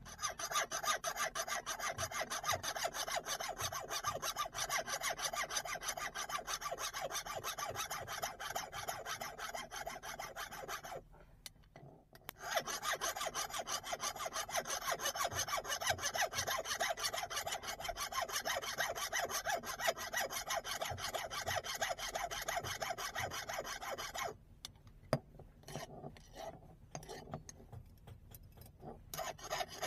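Hand file rasping across a steel axe head in rapid, even back-and-forth strokes. The strokes stop briefly about eleven seconds in and pick up again. They thin out to a few scattered strokes and clicks for the last several seconds.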